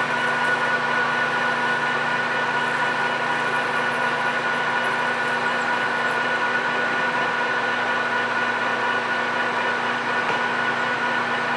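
PM1660 manual engine lathe running steadily at 600 RPM, a constant hum with a gear whine, while a carbide insert takes a turning cut on a 6061 aluminum bar.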